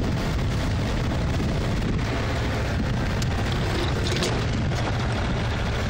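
Strong wind of around 20 knots buffeting the microphone: a loud, steady, low rumble.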